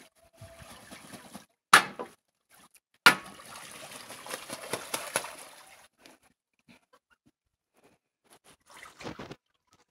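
Domestic geese bathing in a shallow pond: a goose splashing water with its wings, with two sharp splashes about two and three seconds in, the second followed by a couple of seconds of continuous splashing, and another short splash near the end.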